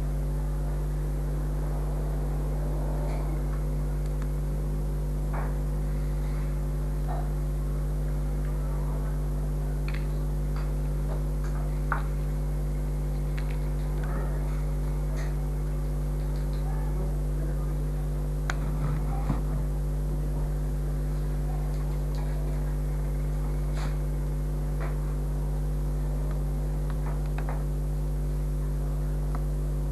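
Steady electrical mains hum with its overtones, with faint scattered ticks and rustles from hands handling wire and fabric petals.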